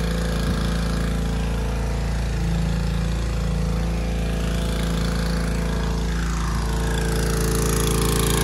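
Pressure washer running steadily, a constant mechanical hum with a slight rise and fall in pitch about two-thirds of the way through.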